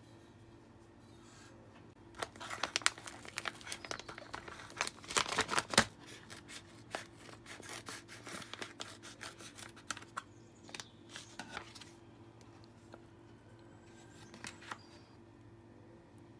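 Plastic kimchi pouch crinkling as it is handled and cut open across the top with scissors: a run of sharp crackles and snips, densest and loudest in the first few seconds, thinning out later.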